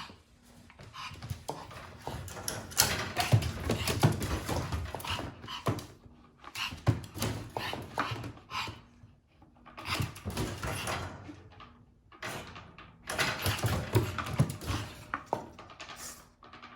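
Japanese Chin puppy moving about, making soft scratching and rustling noises in short spells of a second or two, with brief pauses between.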